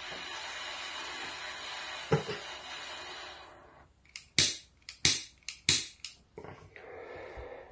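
Butane torch lighter's jet hissing steadily, then dying out about halfway; a quick run of sharp igniter clicks follows as it is re-sparked, and the jet hisses again near the end. The sputtering is the sign of the lighter running out of fuel, as the owner concludes.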